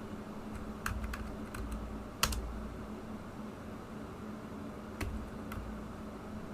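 A few scattered computer keyboard key presses, the loudest about two seconds in, over a faint steady hum.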